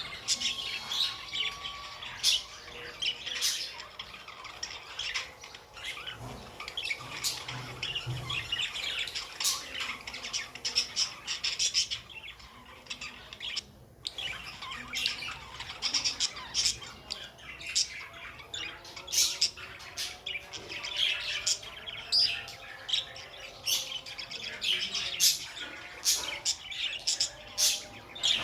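Budgerigars chattering: a continuous stream of quick chirps and warbles mixed with sharp squawks, broken only by a brief pause about fourteen seconds in.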